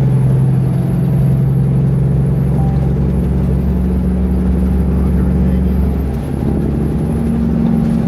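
Engine and road noise of a vehicle at highway speed, heard from inside the cab: a steady low drone whose pitch shifts, with a brief dip in loudness about six seconds in.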